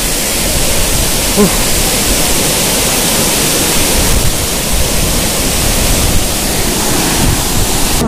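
Waterfall: a steady, even rush of falling water, with wind gusting on the phone's microphone underneath.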